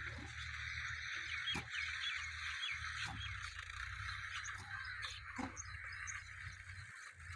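Hand hoe chopping into dry, clodded soil, a few separate strikes roughly every one and a half to two seconds, over a steady high animal chorus with a few bird chirps.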